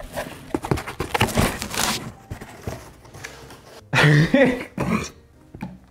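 A cardboard box being handled and set back down, with rustling and light knocks, then a short wordless vocal sound about four seconds in.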